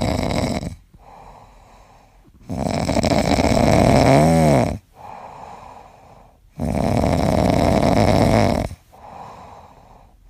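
A Pomeranian puppy snoring in its sleep: loud snores about every four seconds, each lasting about two seconds, with quieter breaths between. The middle snore carries a brief wavering whistle-like tone.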